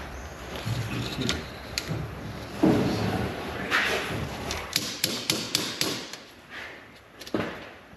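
Light hammer taps and knocks on a small piece of trim molding held on an anvil, working a divot out of it. A heavier thump comes about three seconds in, then a quick run of light taps a couple of seconds later.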